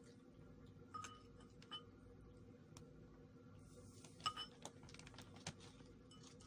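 Metal spoon clinking against a ceramic bowl: a few light ringing clinks, the loudest pair a little past four seconds in, over a faint steady hum.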